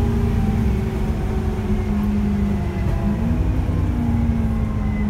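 Dennis Trident double-decker bus running, heard from inside the lower deck: a steady low engine rumble with a droning tone that rises briefly about three seconds in and then settles.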